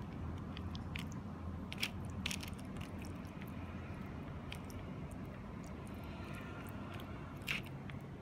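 Fingers squishing and mixing soft rice-like food in a thin black plastic tray: irregular small clicks, crackles and squelches, with a few sharper snaps, about two seconds in and again near the end, over a low steady rumble.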